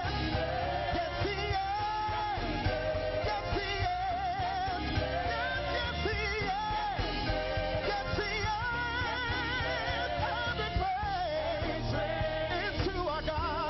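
Gospel worship song sung by a group of singers with band accompaniment, the voices wavering with vibrato on held notes. The words are "God my Saviour, God my Healer, God my Deliverer, yes He is, yes He is".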